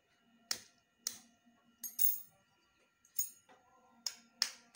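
An egg knocked repeatedly against the rim of a white plastic mixing bowl to crack its shell: about six short, sharp taps at uneven intervals.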